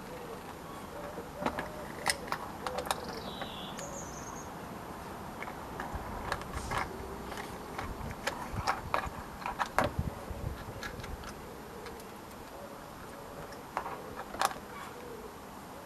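Irregular clicks and taps of plastic parts and small screws being handled while a solar panel is fitted to a bird feeder, busiest around the middle. A brief high chirp sounds about three seconds in.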